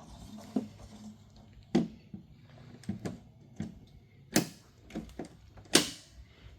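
A string of irregular sharp clicks and knocks, about ten in all, the loudest about two seconds in, about four and a half seconds in and near the end, over a faint low hum.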